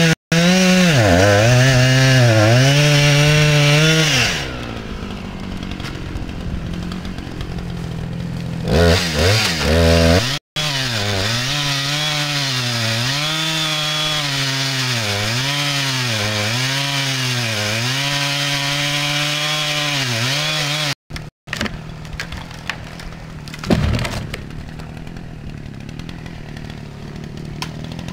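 Chainsaw cutting into the base of a dead tree: it runs at full throttle, its pitch sagging and recovering about once a second as the chain bites, and drops to a steady idle between cuts. Near the end, while the saw idles, there is a single heavy thud.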